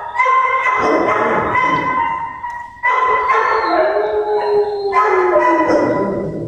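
Several dogs howling at once: long, drawn-out howls at more than one pitch, some sliding slowly downward, with a brief break about two and a half seconds in.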